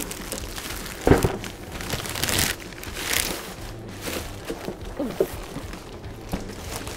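Thin clear plastic wrapping crinkling and rustling as it is pulled off a hard plastic cooler, with a sharp thump about a second in.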